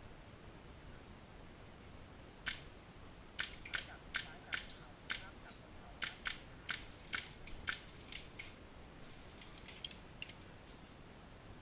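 Airsoft guns firing single shots: about a dozen sharp, irregular cracks starting a couple of seconds in, then a faint flurry near the end.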